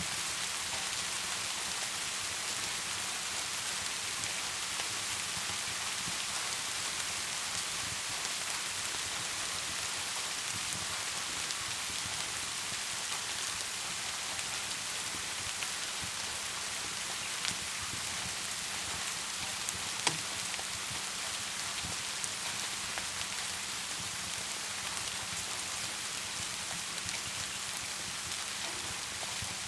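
Steady rain falling, an even hiss throughout, with a wood fire crackling now and then: a few faint pops and two sharper ones about two-thirds of the way through.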